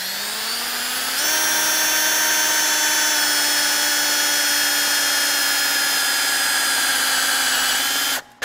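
Cordless drill running under load as it drills a bolt hole into an aircraft main landing gear leg through an aluminium guide block. The motor whine rises in pitch over the first second, then holds steady with a slight sag, stops briefly near the end and starts again.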